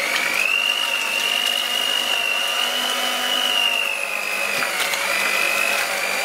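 Handheld electric mixer running steadily with a high whine, its wire beaters churning softened cream cheese and cream in a glass bowl. The pitch sags slightly about four seconds in.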